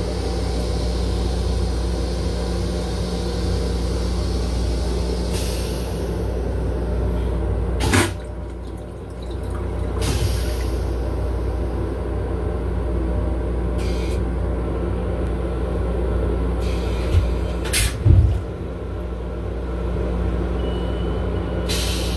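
Steady mechanical rumble and hum of an M7 railcar, heard in its small restroom, with a few sharp knocks about 8 and 18 seconds in.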